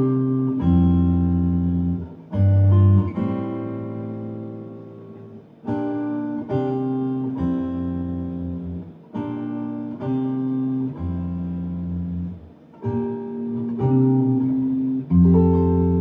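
Acoustic guitar chords struck every second or two, each ringing and fading, over electric bass notes in a slow band passage; the soprano saxophone is not playing.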